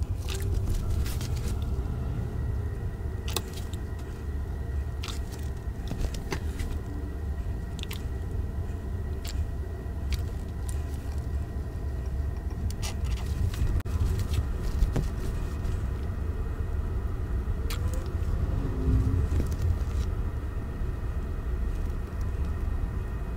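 Steady low rumble with scattered small clicks and crackles of handling: a plastic squeeze bottle of dye being squeezed onto bound fabric and moved about by rubber-gloved hands.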